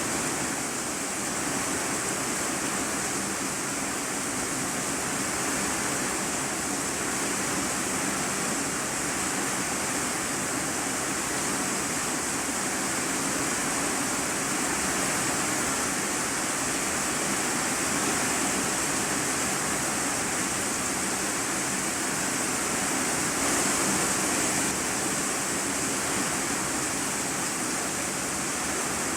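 Heavy rain drumming steadily on an iron-sheet roof, heard from the room below as an even, unbroken hiss.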